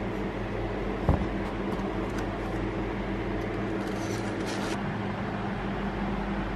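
Steady room hum from an air conditioner, with a soft knock about a second in and light clicks around four seconds as plastic lids come off paper coffee cups and the cups are set down on a desk.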